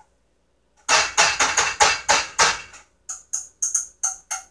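A utensil clattering rapidly against a small stainless steel saucepan for about two seconds, then separate sharp taps about four a second as the pan is worked.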